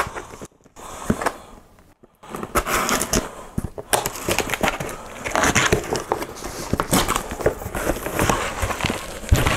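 Scissors cutting the packing tape on a small cardboard box, with scraping, clicking and rustling of the cardboard. It starts about two seconds in, after a brief near-quiet lull.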